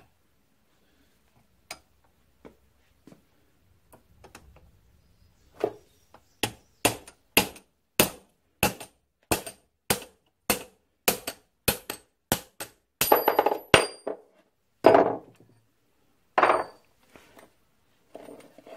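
Hammer tapping on a steel pin punch to drive the old fuel pump plunger out of a part held in a bench vise. About fifteen sharp metal taps come at roughly two a second and quicken, followed by a few heavier blows that ring.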